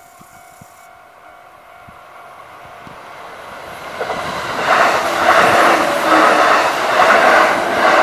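Kintetsu Osaka Line train approaching and passing over a level crossing. Its running noise builds over the first few seconds, then loud wheel-on-rail rumble with repeated clatter as the cars go by. The crossing signal's bell rings steadily underneath.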